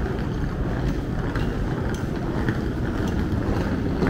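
City street ambience: a steady low rumble with a few faint scattered ticks.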